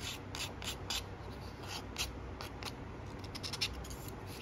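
Fine-grit sanding stick rubbed over a small plastic model part in short, uneven strokes, a few a second, each a soft scratchy rasp.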